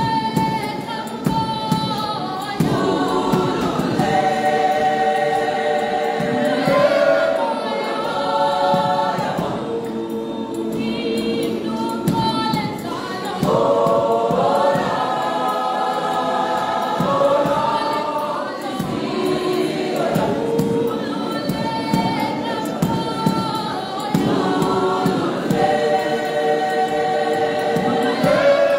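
Mixed choir of women and men singing a church hymn in harmony, with long held chords and no instruments heard.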